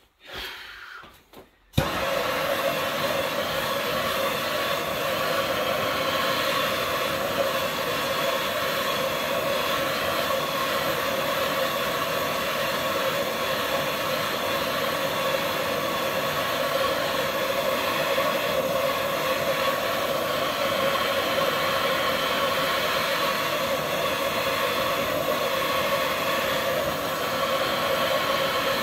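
A loud, steady rushing hiss that cuts in suddenly about two seconds in: a heating tool blowing on the metal of a seized Honda engine to free it.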